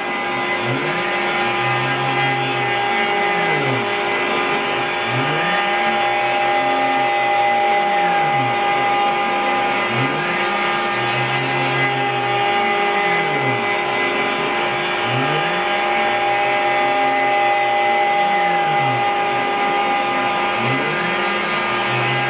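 Router spindle on a CNC router running steadily with a high whine as it cuts a shallow pocket, with the dust collector drawing through the hose. A lower motor tone rises and falls in pitch every couple of seconds as the machine moves the cutter around.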